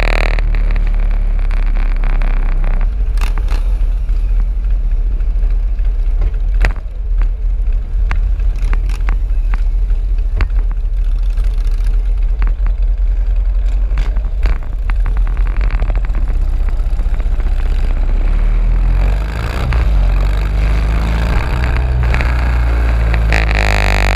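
Motorcycle riding at speed, heard from a camera mounted on the bike: a heavy, steady low rumble of engine and wind on the microphone, with scattered sharp clicks. Near the end the engine note rises as the bike accelerates.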